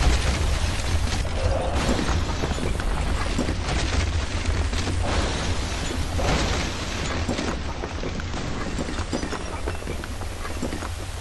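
Explosion and building-collapse sound effects: a sudden blast, then a heavy low rumble under a dense run of crashes and clattering debris that eases off a little in the last few seconds.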